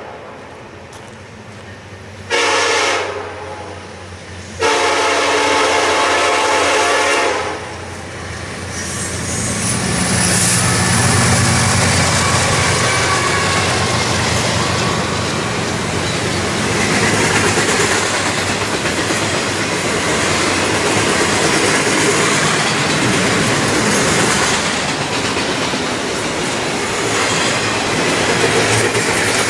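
Freight diesel locomotive horn sounding two blasts, the second longer, as the train nears the grade crossing. The locomotives' engines then rumble past, followed by the steady clickety-clack and rumble of a double-stack container train's cars rolling by on the rails.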